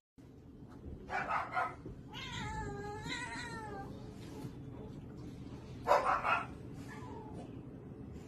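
A cat meowing: a short harsh cry about a second in, then one long wavering meow of nearly two seconds, and another short cry near the end.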